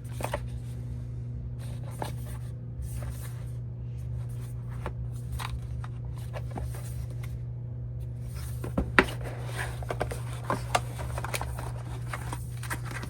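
Small cardboard album box being handled and opened: scattered clicks and rustles of cardboard and packaging, busier in the second half with a sharp knock about nine seconds in, over a steady low hum.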